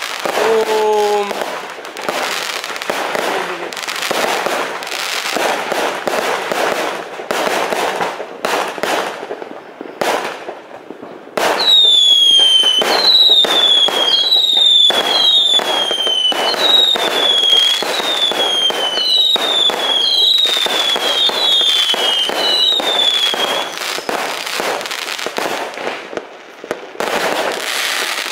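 Aerial fireworks going off in quick succession: dense crackling and banging throughout. About a third of the way in it gets louder, and about a dozen short falling whistles follow one another, roughly one a second, over the bangs.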